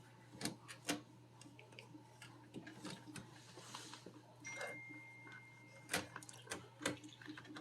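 Faint, irregular clicks and small knocks of a borescope camera cable being pushed and twisted inside a corrugated dishwasher drain hose.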